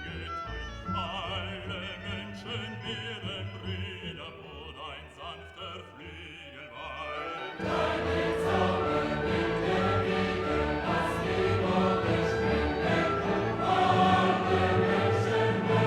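Background music; it swells into a louder, fuller section about seven and a half seconds in.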